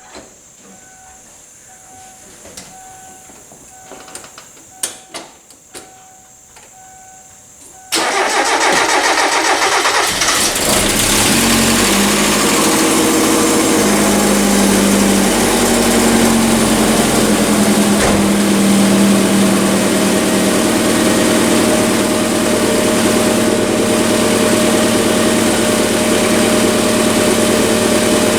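A repeating electronic chime beeps, with a few clicks. About eight seconds in, the 2000 Kia Sportage's four-cylinder engine starts abruptly and settles into a steady idle. This is the first start after a fuel filter replacement.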